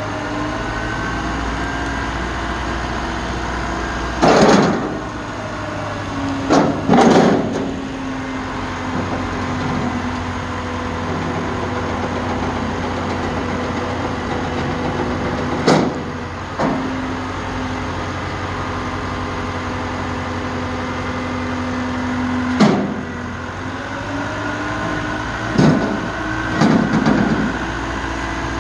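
Rollback tow truck running its deck hydraulics: a steady engine-driven pump hum and whine that shifts pitch a few times as the tilting deck and ramps are moved. Loud clanks from the steel deck and ramps break in about seven times.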